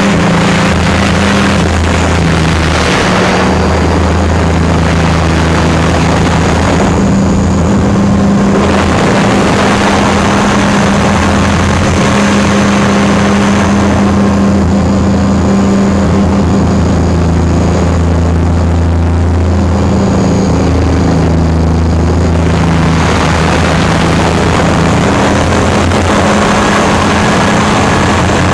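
Align T-Rex 500 electric RC helicopter's rotor and motor heard from a camera on board: a loud, steady low drone with wind rushing over the microphone, the rush swelling and thinning a few times as it manoeuvres.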